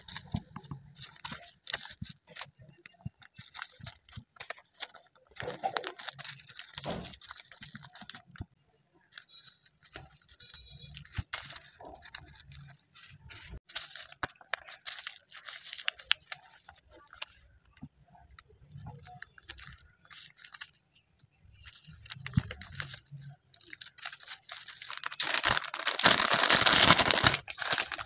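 Bubble wrap and thin clear plastic crinkling and rustling as they are handled and folded around small packets, coming and going in uneven bouts. The crinkling grows loudest and densest near the end, as the plastic bag is handled.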